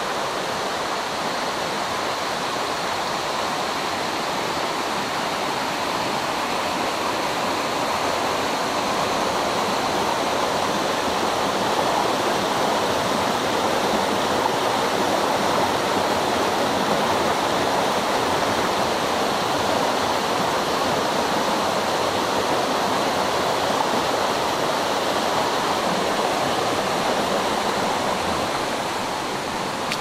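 Mountain stream rushing over boulders and small cascades: a steady rush of water.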